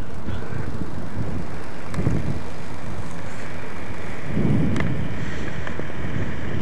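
Wind buffeting a camcorder microphone: a low, gusty rumble that swells about two seconds in and again past the halfway point, with a couple of faint clicks.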